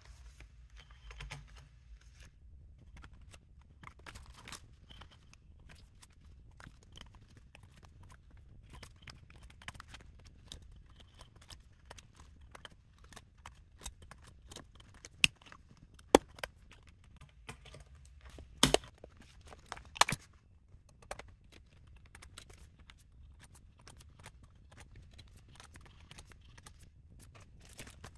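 Plastic vellum dividers and envelopes rustling and crinkling as they are handled and fitted onto the metal rings of a six-ring A6 binder. Many light clicks run throughout, with a few sharper, louder clicks in the middle.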